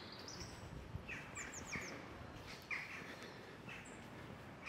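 Faint birdsong: small birds chirping in short repeated calls, with a quick run of high thin notes about a second and a half in.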